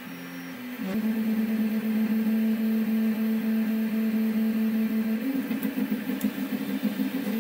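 CoreXY 3D printer printing, its stepper motors giving a steady pitched hum. The hum gets louder about a second in, then shifts pitch and turns fluttery a little after five seconds as the toolhead changes moves.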